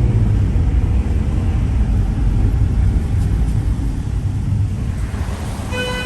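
Steady low rumble of a vehicle driving along a city street. Near the end a horn sounds one steady note for about a second.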